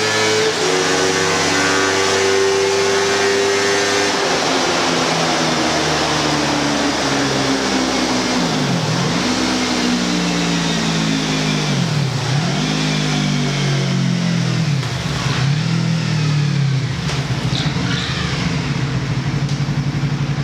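Motorcycle engine breathing through a PRUNUS aftermarket muffler, run hard on a chassis dynamometer in a 0-400 m acceleration test. After a few steady seconds the revs climb, dropping sharply at each of about four upshifts and climbing again.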